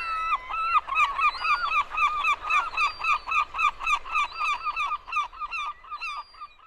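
A flock of geese honking: a rapid run of short, overlapping calls, about four a second, that thins out near the end.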